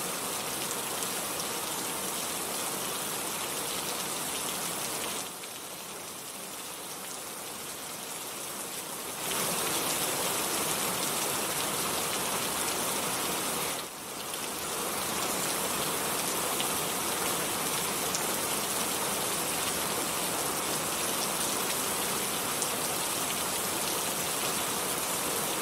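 Steady rain falling, a dense even hiss of drops. It drops in level at about five seconds, comes back up near nine, and dips briefly near fourteen.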